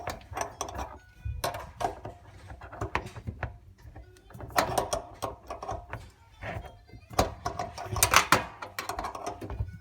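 Metal spanner clicking and knocking irregularly against a tap's mounting nut and the fittings around it as it is worked round in short strokes, tightening the loose tap base down. There are clusters of sharper clinks near the middle and near the end.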